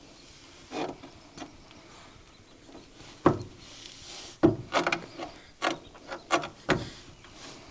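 A series of about a dozen irregular knocks and clunks, the loudest about three seconds in and a quick cluster in the second half: hard objects being handled and set down.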